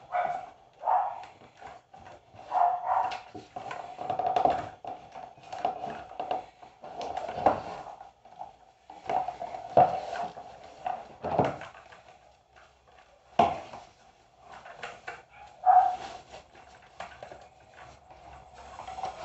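Keyboard packaging being handled: a cardboard box and its inner tray knocking and scraping, and a foam or plastic wrapping sheet rustling as the keyboard is unpacked. Irregular knocks and rustles, with a few sharper knocks in the second half.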